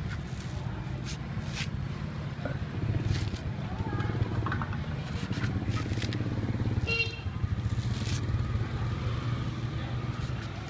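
A cleaver chopping and shaving the fibrous husk of a young coconut: a run of sharp, irregular chops. Under it runs a steady low rumble of engines.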